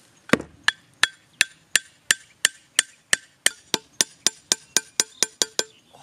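Machete blade striking the top of a thin wooden stake again and again, driving it into the ground: about nineteen sharp, metallic-ringing knocks, roughly three a second, quickening toward the end.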